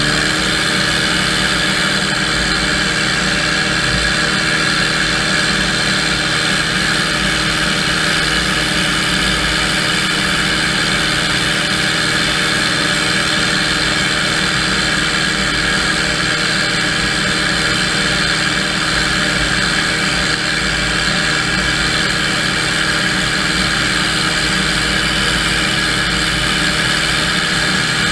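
Tractor-drawn airblast orchard sprayer and its tractor running steadily, the fan's drone and the engine blending into one even, loud noise while it sprays oil on apple trees.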